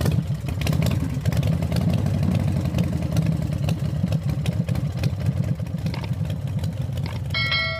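An intro sound effect of an engine running with a steady low rumble. A bell-like ding comes near the end.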